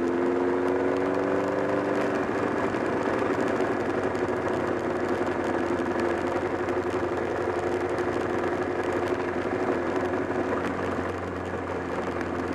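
Honda CBR1000RR inline-four engine running, its pitch rising for the first couple of seconds and then holding steady. The owner reports a flapping, rattling noise from near the engine that has grown stronger, along with a loss of torque.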